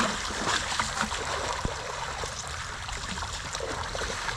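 Shallow water splashing and trickling, with many small splashes throughout.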